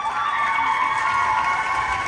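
Crowd cheering and applauding, with several high-pitched screams held for about three seconds over the clapping.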